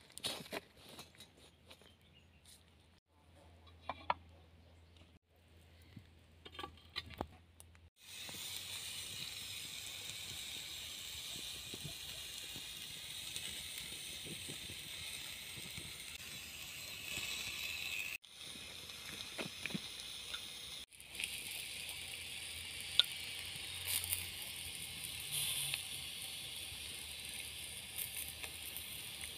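A few light metallic clinks and scrapes as an iron ring trivet is set down in wood ash, then a steady sizzle from buttered baked potatoes cooking on a hot iron pan over embers, with occasional sharp ticks.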